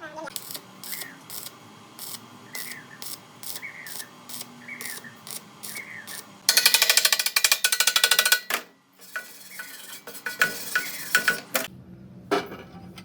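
Repeated mechanical clicking, about three clicks a second. It turns into a louder, very rapid clicking run for about two seconds past the middle, then goes back to scattered clicks.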